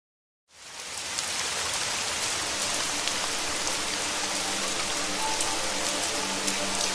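Steady rain falling, fading in about half a second in, a dense hiss with the patter of individual drops.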